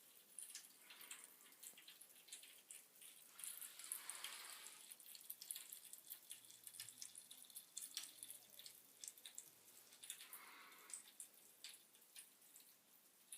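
Little Explorers Funky Fizz bath crackles popping in bathwater: faint, irregular sharp crackles, with two short swells of hiss about four and ten seconds in.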